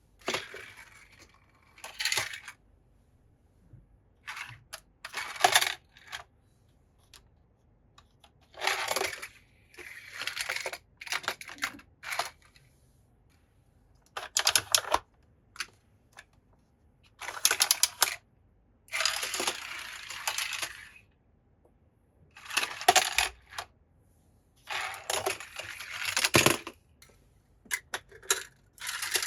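Toy cars clinking and clattering against each other and a hard surface in about a dozen short bursts of rapid, bright clicks, with quiet gaps between.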